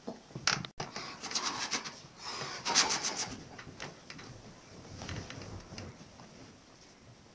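A person's breathy gasps and sniffling breaths in a few noisy bursts during the first three seconds, then fainter.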